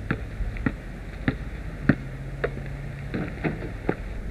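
A basketball being dribbled on asphalt: sharp, regular bounces a little over half a second apart.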